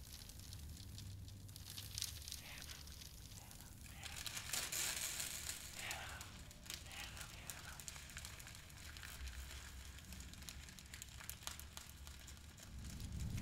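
Faint crackling and crinkling made of many small clicks, like paper being handled, a little busier around five seconds in, with a faint voice-like sound there.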